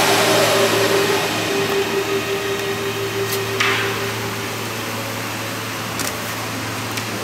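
A machine running steadily with a low hum, with a few light clicks and a brief hiss a little past halfway.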